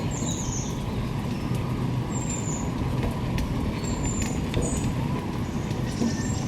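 Wheelchair rolling over pavement: a steady low rumble with many small knocks, and short high squeaks now and then.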